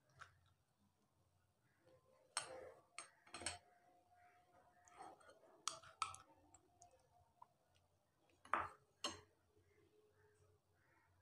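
Faint, scattered clicks and taps of a metal spoon against a steel bowl while spooning filling onto dough, about seven in all, the two loudest a little before the end.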